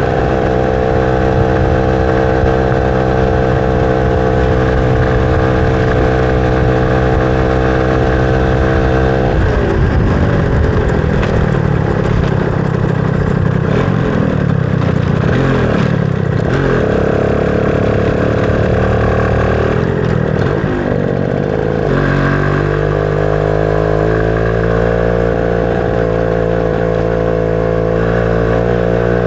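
Motorcycle engine running at a steady speed, its revs rising and falling repeatedly for about twelve seconds from about a third of the way in, then settling back to a steady run.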